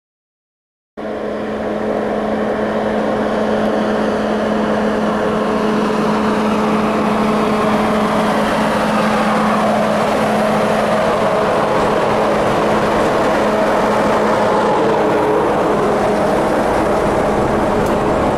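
Class 47 diesel locomotive D1500, its Sulzer twin-bank diesel engine running with a steady drone as it draws slowly past hauling coaches. The sound cuts in suddenly about a second in and grows a little louder as the locomotive comes close.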